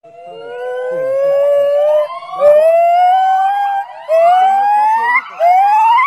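Male white-cheeked gibbon calling: a series of about four hooting notes, each rising in pitch. The first is long and slow, and each one after it is shorter, higher and steeper than the last, building up the song.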